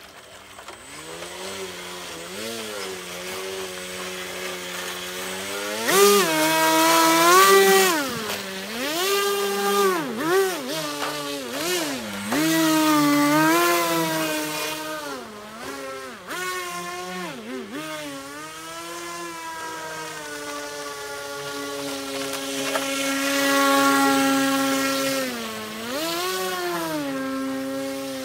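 Custom RC airboat's motor and air propeller running, its pitch rising and falling again and again as the throttle is worked, then holding steady for several seconds before dipping again near the end. It grows louder at moments as the boat runs close by.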